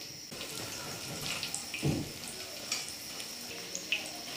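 Small fried fish tipped back into hot oil in a wok, sizzling and crackling steadily: a second fry over high heat to make them extra crisp. A low knock about two seconds in.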